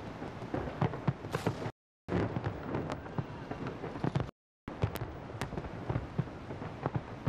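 Fireworks salute bursting: a dense, irregular run of bangs and crackles with low booms, as carried on a television broadcast. The sound cuts out completely for a fraction of a second twice.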